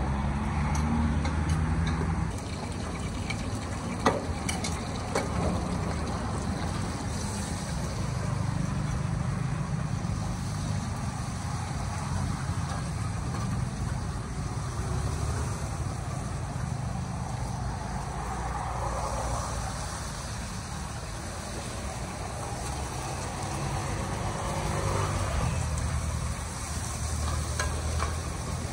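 Eggs frying in hot oil in a large shallow pan, sizzling steadily, with metal spatulas scraping and clicking against the pan; one sharp click about four seconds in. A steady low rumble runs underneath.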